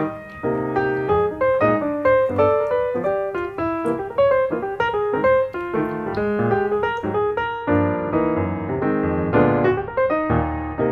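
Background piano music, with notes struck in quick succession.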